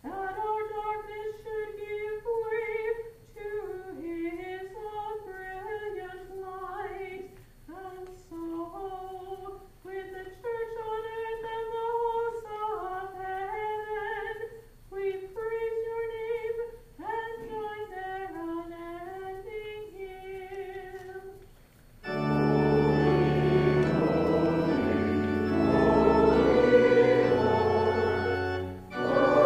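A woman's voice singing a liturgical chant alone, unaccompanied, in held notes. About 22 seconds in, a church organ comes in much louder, with the congregation singing along.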